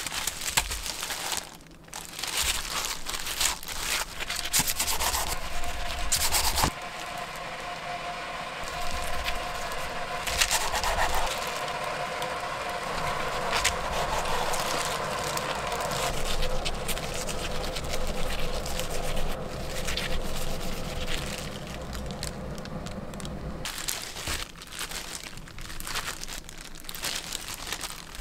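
A bamboo rolling mat is peeled off a kimbap roll, then a Henckels kitchen knife slices the roll on a wooden board. There is crackling of the dried laver and clicks of the blade against the board, along with rustling of disposable plastic gloves.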